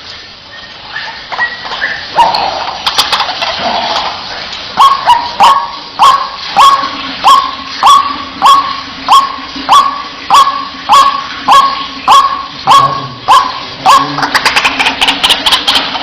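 White-breasted waterhen (ruak-ruak) calling: a regular series of loud, sharp notes, about one every 0.6 seconds, that breaks into a faster, denser chatter near the end.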